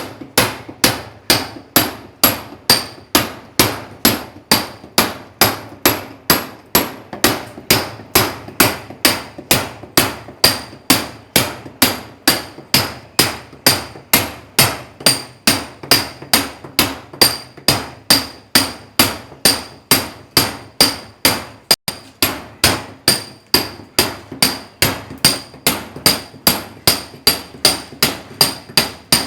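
Club hammer striking a steel masonry chisel in a steady rhythm, about two blows a second, each blow with a bright metallic ring: hand chiselling of masonry or concrete.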